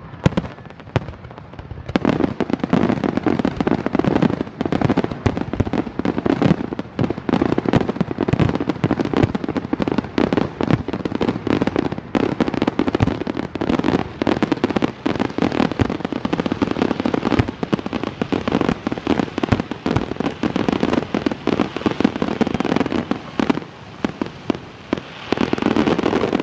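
Fireworks display going off close by in a rapid, nearly continuous barrage of bangs and crackles, starting about two seconds in. Many shells burst at once, with a brief thinning near the end before another loud flurry.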